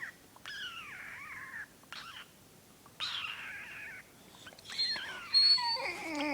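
A person making strange, high squeaky animal-like noises: a run of calls that each slide down in pitch over up to about a second, with a louder, more tangled call near the end.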